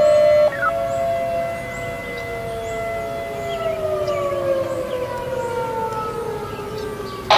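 Federal 2001-130 outdoor warning siren wailing, its pitch sinking slowly over several seconds and starting to climb again near the end, during a test the title calls a failure. A brief louder steady tone sounds in the first half-second, and a sharp click comes near the end.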